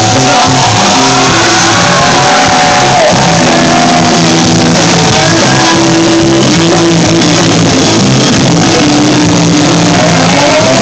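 Live rock band playing loud, with a solo line of sliding, bending high notes over held low bass notes.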